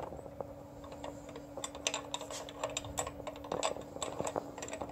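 Light, irregular metallic clicks of a hex key working an Allen screw into an aluminium starter bracket, over a faint steady hum.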